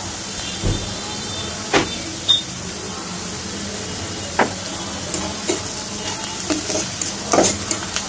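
Sliced onions sizzling steadily in hot oil in a wok, with a metal spatula stirring them and clicking sharply against the pan several times.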